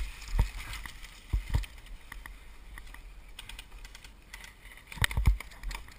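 Rustling of tactical gear with scattered clicks and knocks and low thumps on a body-worn camera as a crouching player moves, the loudest knocks coming about a second and a half in and again about five seconds in.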